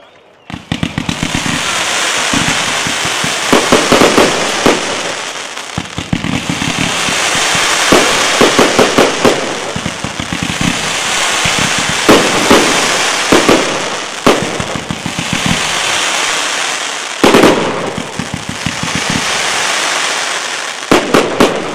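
Fireworks display: a continuous crackling hiss of burning stars, broken every couple of seconds by rapid runs of bangs. It starts about half a second in and dies down near the end.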